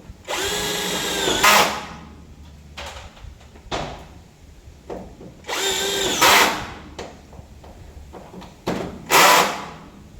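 Power drill run in three short bursts of about a second each, a steady whine that gets louder just before each burst stops.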